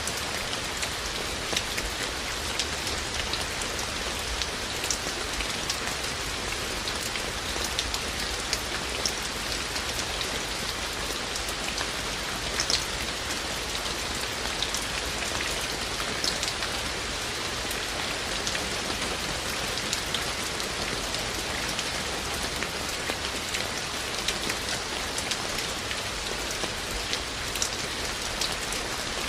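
Steady heavy rain falling on a surface, with many distinct drops ticking sharply over the dense hiss of the downpour.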